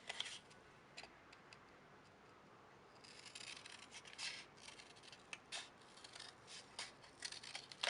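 Scissors cutting through a flattened cardboard tube: faint, uneven snips and paper rustles that start about three seconds in, after a nearly silent stretch.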